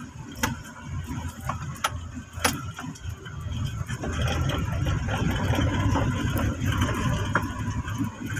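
Engine and road noise inside a Mahindra SUV's cabin on a rough dirt track, with a few sharp rattles or knocks in the first couple of seconds. The engine gets louder about four seconds in and keeps running.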